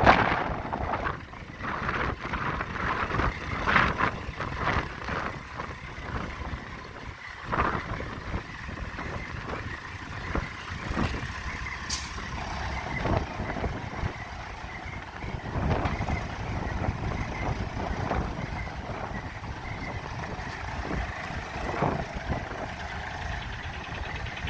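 JCB 3DX backhoe loader working: engine running under irregular knocks and clanks, with a short sharp hiss about twelve seconds in.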